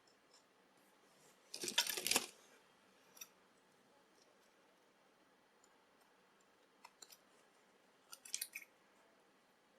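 Plastic film crinkling as it is handled and wrapped around padlock shims: a short, crisp burst about two seconds in, a few faint clicks, and a second brief cluster of crinkles near the end.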